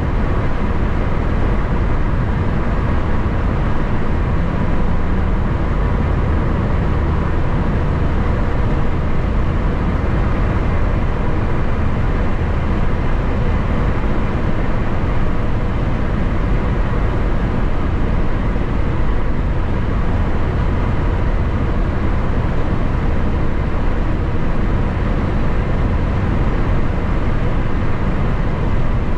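Steady road and wind noise of a vehicle cruising at highway speed: a constant low rumble with a faint steady hum above it, unchanging throughout.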